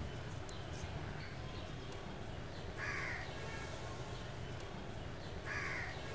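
A crow cawing twice, once about three seconds in and again near the end, over a steady low background rumble.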